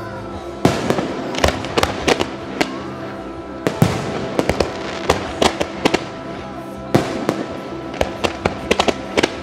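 Fireworks display: shells and comets firing and bursting in sharp bangs at irregular intervals, with a quick cluster of reports near the end. Music plays steadily underneath.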